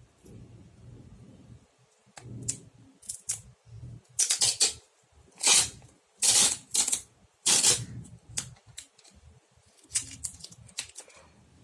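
Scissors cutting through sponge and sticky tape: a run of short, crisp snips. The loudest strokes, about half a second each, come in the middle.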